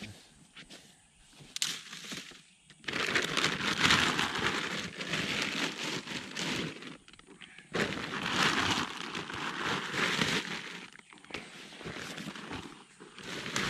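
Paper feed sacks rustling and crinkling as they are handled and piled, in two long stretches with a short pause between.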